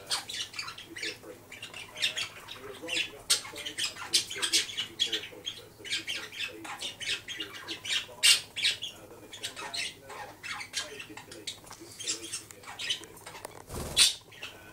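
Budgerigar chattering: a fast, continuous run of short chirps, clicks and warbles. Near the end comes a brief loud flutter of wings.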